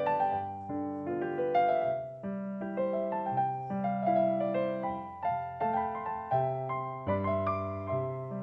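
Solo piano music: a melody of single notes over low bass notes.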